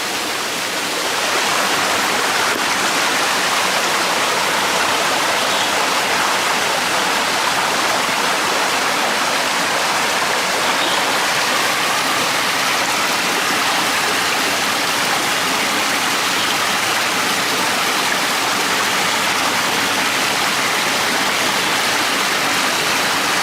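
Small stream flowing: a loud, steady rush of running water that grows a little louder about a second in.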